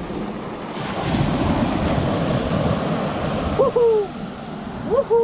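Small waves washing up on a sandy beach, with a steady surf noise. Near the end come two short calls, each jumping up in pitch and sliding back down, louder than the surf.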